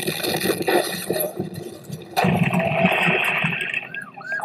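Loud, rough rushing and scraping noise that changes abruptly about halfway through, then a police siren yelping in quick rising-and-falling cycles begins near the end.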